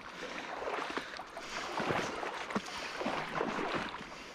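Water splashing and swirling irregularly as a large hooked trout thrashes at the surface of a fast-flowing river, over the rush of the current.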